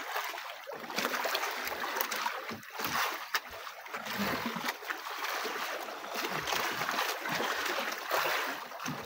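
Sea water sloshing and splashing against the hull and outriggers of a drifting outrigger fishing boat, with a few light knocks scattered through.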